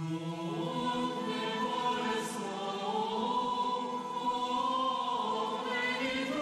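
Choir singing slow, held sacred music, several voices sounding together.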